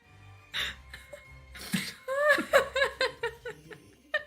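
A person laughing: a couple of sharp breathy bursts, then a quick run of repeated ha-ha syllables.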